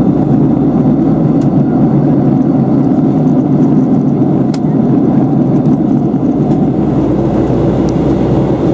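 Steady cabin noise of a Boeing 757-300 in flight: engine and airflow noise, a dense low-to-mid rumble at an even level, with a few faint ticks.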